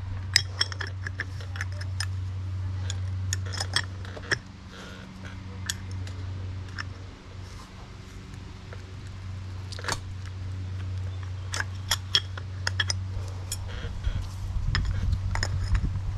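Metal tools and parts clinking and tapping against each other in a scattered series of sharp clicks, over a steady low hum.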